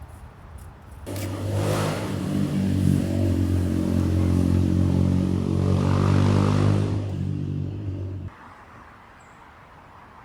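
A motor vehicle's engine running steadily at one pitch. It starts abruptly about a second in and cuts off suddenly about eight seconds in.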